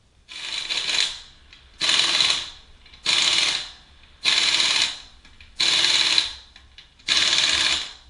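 Impact wrench running the wheel's lug nuts on, in six short bursts about one every second and a quarter: the wheel being refitted after the hub bearing job.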